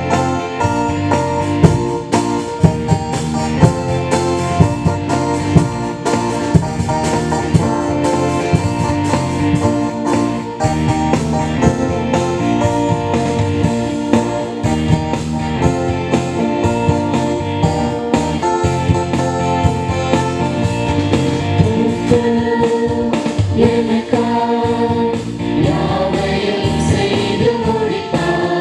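Live band playing a Tamil Christian worship song, with electric guitar, keyboard and drum kit, and several voices singing into microphones.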